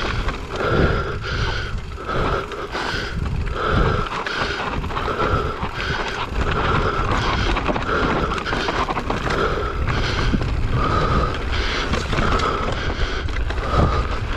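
Mountain bike riding down a dirt singletrack, heard from a camera on the bike: tyres rumbling over the dirt, chain and frame rattling over bumps, and wind on the microphone, with a buzzing tone that comes and goes about once a second.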